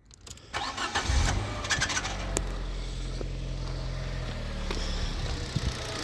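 Fiat 500 engine being started: a short burst of starting noise about half a second in, then the engine catches and settles into a steady idle, with several sharp clicks in the first two seconds. This is the abnormal noise the car makes on starting.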